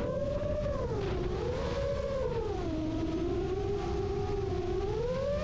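FPV quadcopter's motors and propellers whining, the pitch swinging up and down with the throttle and climbing again near the end, over a steady rush of wind, heard from the camera mounted on the drone.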